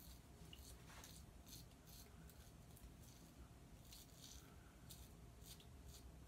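Faint scraping of a Merkur Progress adjustable double-edge safety razor cutting lathered beard stubble, in a series of short strokes that come in small clusters.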